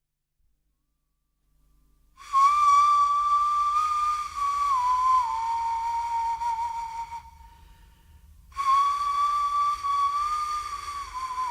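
A breathy flute plays two long held notes, each dropping a step in pitch partway through, with a short break between them and the breath noise plainly audible. It starts about two seconds in, after a moment of silence.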